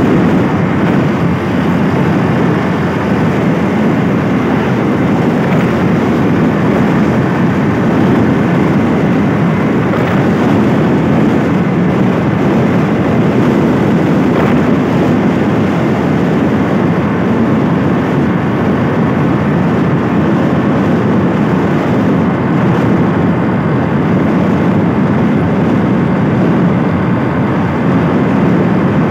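Steady rush of a motorbike being ridden at speed, its engine and road noise mixed with wind on the microphone.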